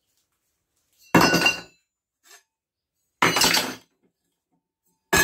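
Two metallic clanks about two seconds apart, each ringing briefly: a rusty steel pipe and rod set down hard on a metal workbench. Music starts right at the end.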